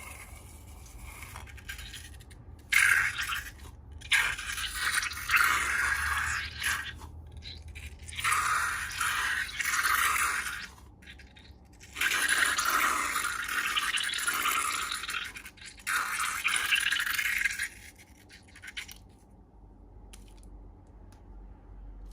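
Slime being worked and mixed, in about six long bursts of squishing, scraping noise with short pauses between them, which die away near the end.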